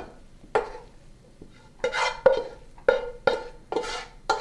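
Wooden spatula scraping fried onions and parsley out of a metal frying pan into a ceramic baking dish, in about half a dozen short strokes, with the pan knocking lightly against the dish.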